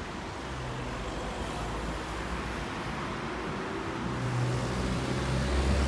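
Street traffic noise, with a car's engine rumble growing louder over the last couple of seconds as it comes close.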